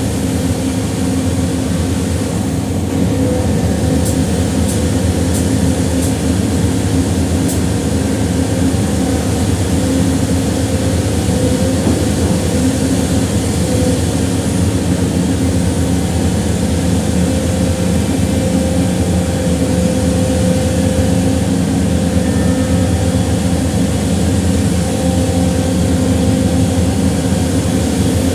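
Engine of a concrete mixer running steadily at constant speed, with no change in pitch or level.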